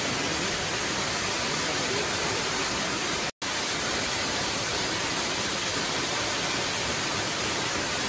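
Waterfall: a steady, even rush of falling water, cutting out for an instant a little over three seconds in.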